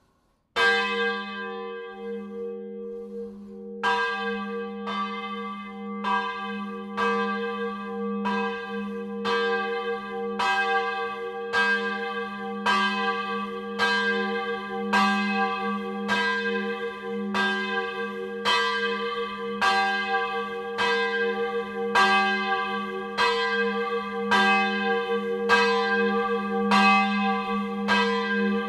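A single church bell rung in full swing (a distesa) by its wheel and chain drive. The clapper strikes about once a second, with the bell ringing on between strikes. The first strike comes about half a second in, then a pause of about three seconds before the steady strikes begin.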